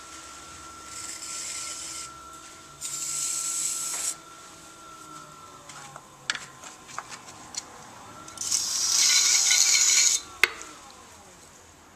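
Potter's wheel motor humming and slowing down from about halfway, while a tool scrapes the clay in three passes, the last one the loudest and longest. A few light clicks follow, then one sharp click near the end.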